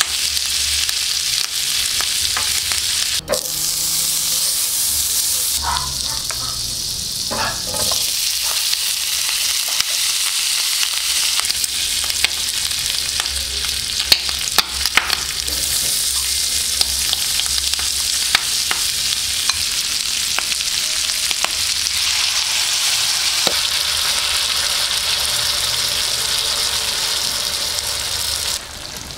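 Tuna cubes and vegetables sizzling in hot oil on a black sizzling plate, a steady hiss with scattered pops. The sizzle changes abruptly a few times and drops lower near the end.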